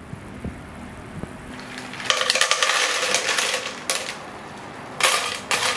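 Cockles in their shells poured into a steel pan of simmering sauce, the shells clattering and clinking against each other and the pan from about two seconds in, with a second run of clinks near the end.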